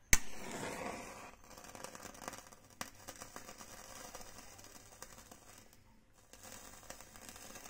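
A safety match struck on its box with one sharp scrape-click, flaring with a short hiss that fades over about a second. Then faint, scattered crackles and ticks as the burning match is held to the lamp's oil-soaked cotton wick.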